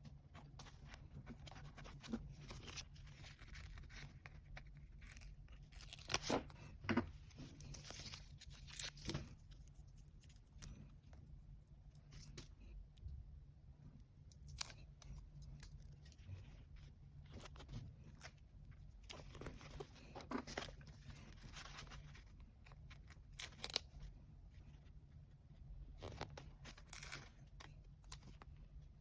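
Paper and sticker film being cut with scissors and torn by hand for a journal collage: crisp snips, rips and paper rustling come and go irregularly, loudest about six to nine seconds in.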